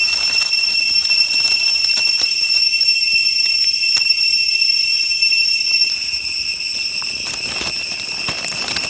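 Loud, steady high-pitched insect chorus of cicadas or crickets, several pitches held at once; about six seconds in part of it stops and it gets a little quieter. Faint clicks and rustles of hands handling a mushroom and knife among dry leaves.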